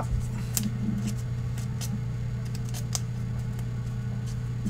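Gloved hands handling a trading card and its clear plastic wrapper: scattered soft clicks and crinkles at irregular intervals over a steady low hum.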